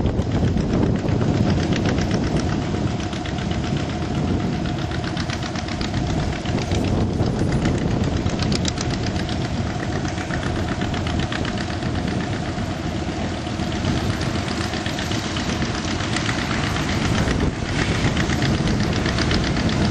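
Farm tractor engine running steadily, with a rapid, even firing beat.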